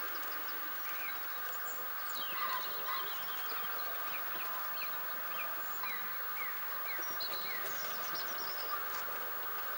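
Hornby OO gauge model locomotive's electric motor running steadily as it hauls coaches over the track, a constant hum. Birds chirp in short, downward-sliding calls, most of them about two to three seconds in and again later on.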